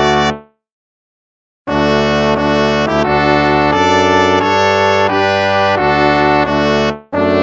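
Instrumental hymn music in slow, held chords. The music cuts off about half a second in, falls silent for about a second, then resumes with the chord changing roughly once a second.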